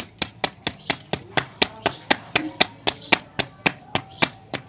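Hands slapping a ball of roti dough back and forth between the palms to flatten it, about four quick pats a second, with the bangles on the wrists clinking at each pat.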